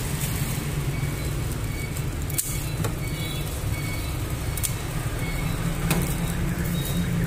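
Steady rumble of passing road traffic, with a few sharp clicks and taps as a steamed spiny lobster is cut with kitchen scissors and a knife on a wooden chopping board.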